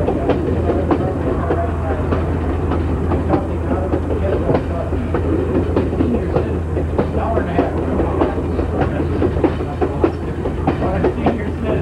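Railroad passenger car rolling over jointed track: a steady rumble with irregular clickety-clack and rattling knocks from the wheels and the car body.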